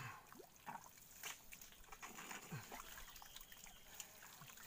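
Faint wet squelching and sloshing of hands digging in waterlogged mangrove mud, with scattered small clicks and a few short low sucking sounds.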